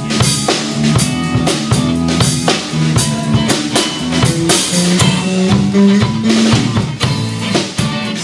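Live band playing an instrumental passage of a blues song: drum kit keeping a steady beat with bass drum, snare and rimshots, under electric bass, keyboard and acoustic guitar, with no singing.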